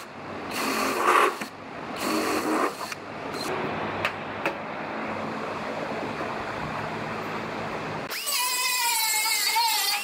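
Cordless drill running in two short bursts as it drills rivet holes through the aluminum cab corner, then a few seconds of steady hiss with a couple of clicks. About eight seconds in, an air-powered disc tool starts with a high whine that wavers in pitch as it works the panel edge.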